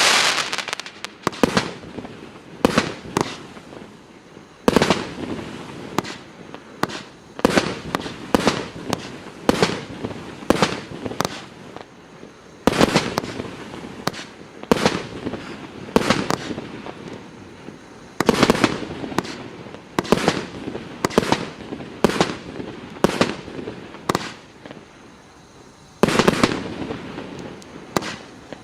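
Multi-shot firework cake (FP-B354 salute battery) firing volley after volley: sharp bursting bangs about once or twice a second, each trailing into crackle.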